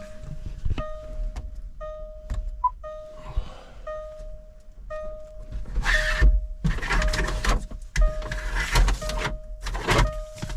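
An electronic warning beep sounds over and over, about one and a half times a second, each beep a steady mid-pitched tone. In the second half, loud bursts of rattling, clattering noise break in for several seconds.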